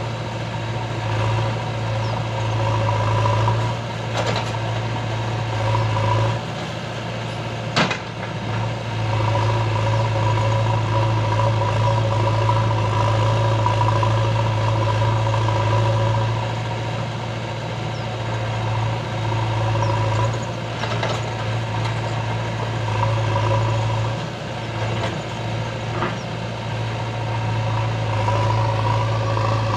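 Diesel engines of a Swaraj 744 FE tractor (three-cylinder) and a JCB 3DX backhoe loader running together, a steady low drone that dips briefly twice. A single sharp knock about eight seconds in.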